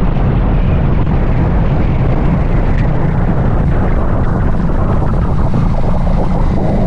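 Keeway Buccaneer 250i motorcycle engine running steadily at riding speed, mixed with wind rushing over the microphone.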